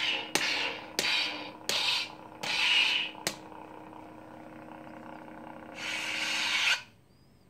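Lightsaber sound effects from a Nano Biscotte V4 soundboard playing its default 'gray meat' font through the hilt's speaker: a steady hum broken by about six sharp swing and clash sounds in the first three and a half seconds as the saber is swung. About six seconds in comes a longer power-down sound, after which the hum stops.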